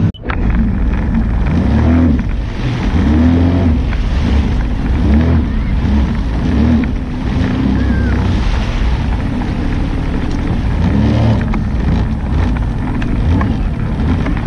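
Jet ski engine running at low speed, its pitch swelling up and down again and again.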